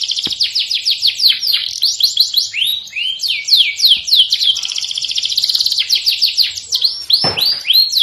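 Domestic canary singing: fast trills of rapidly repeated down-slurred notes, broken by slower swooping notes about three seconds in and again near the end.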